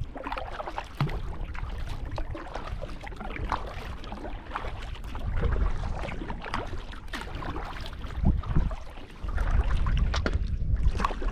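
Water splashing and dripping around a small paddled boat on a lake, with wind buffeting the microphone, heavier in the last couple of seconds.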